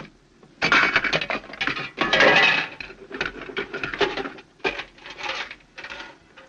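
A slot machine's locked cash door being pried and forced open with a metal tool: a run of metal scraping, clanking and rattling, loudest about half a second in and about two seconds in, followed by smaller clinks as the metal coin box with a few loose coins is pulled out.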